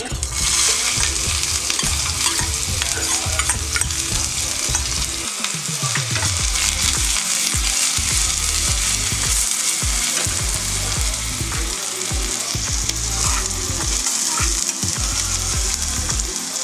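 Chopped onions sizzling steadily as they fry in hot oil with cumin seeds in a small saucepan, stirred, with scattered light clicks of the utensil against the pan.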